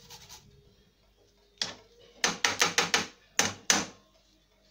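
A flat metal hand grater gives a last short rasp on a garlic clove, then is rapped sharply against the pan about eight times, one knock, a quick run of five, then two more, to shake the grated garlic off.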